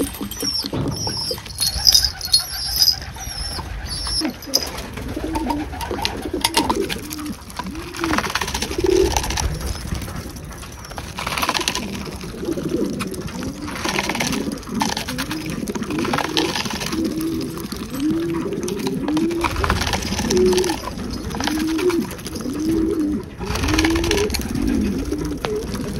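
Pigeons cooing over and over, a run of low rising-and-falling coos from about six seconds in. In the first few seconds there are high chirps of small birds, and rustles or wing flutters come here and there throughout.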